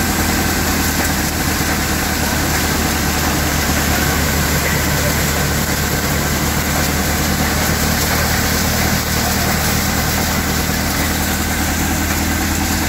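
Combine thresher running steadily while threshing crop: a loud, continuous machine drone with a low, even hum.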